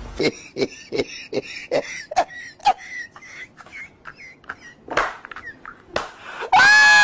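People laughing in rapid rhythmic bursts, about two or three a second, tapering off. Near the end comes one loud, high-pitched held squeal that dips slightly in pitch and lasts about a second.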